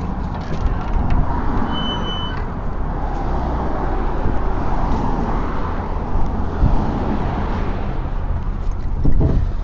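Vehicle on the move: steady engine and road rumble, with one short high beep about two seconds in.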